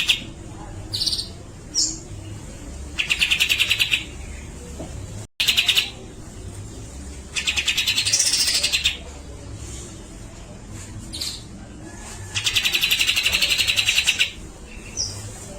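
Grey-cheeked bulbul (cucak jenggot) calling: four harsh, rapid rattling bursts of a second or so each, one with a note that rises and falls, separated by short single call notes.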